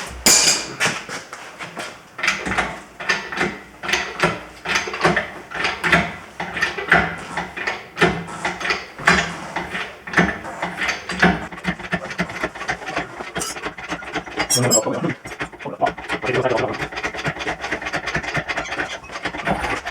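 Hand-worked engine hoist raising an engine: a run of repeated ratcheting clicks and metal scrapes, a couple a second, with a brief pause about three quarters of the way through.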